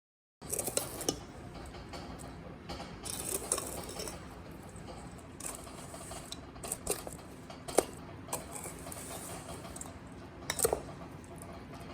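Scattered light clicks and clinks of small hard objects being handled, a few with a brief ring.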